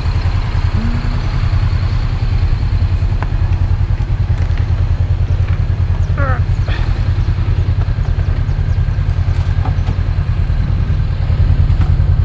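Motorcycle engine running steadily with a low, evenly pulsing exhaust note.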